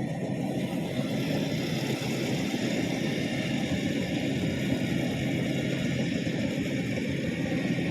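Rice combine harvester's engine running steadily.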